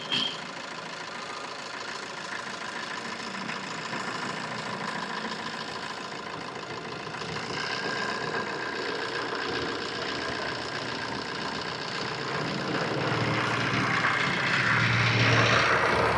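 Maruti Swift's engine idling steadily, growing somewhat louder over the last few seconds. The AC is switched on but the compressor clutch has not engaged, so the compressor is not running.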